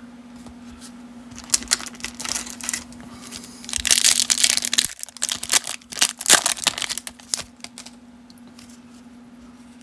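Foil-wrapped baseball card pack being torn open by hand: the wrapper crinkles and crackles, loudest about four to seven seconds in, then the noise dies away.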